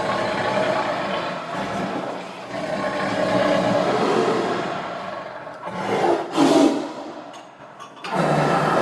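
Big cat growling: long rough growls, a louder outburst about six seconds in, a short lull, then another growl starting near the end.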